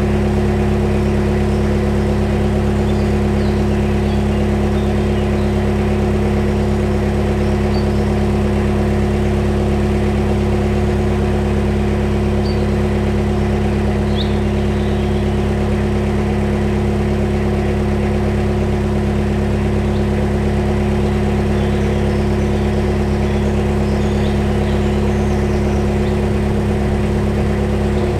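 Narrowboat's diesel engine running steadily at low revs, a constant low hum as the boat cruises slowly.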